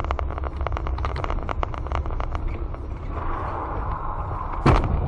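A vehicle running with a steady low rumble and many short clicks, and a sharp knock near the end.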